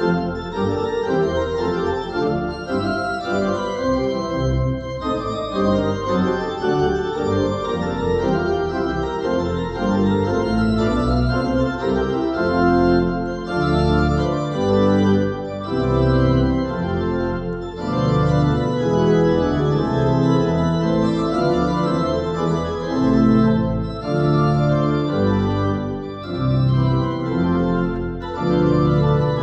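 Church organ played at a multi-manual drawknob console: full, sustained chords moving in steady phrases, with short breaks between phrases.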